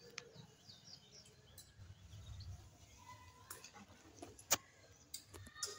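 Quiet room tone with a few faint high chirps in the first second and scattered soft clicks, the sharpest about four and a half seconds in.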